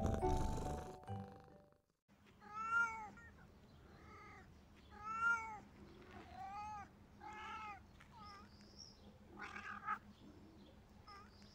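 Stray cats in the mating season yowling: a run of drawn-out calls that rise and fall in pitch, five long ones and then shorter, quicker ones, starting about two seconds in as the intro music cuts off.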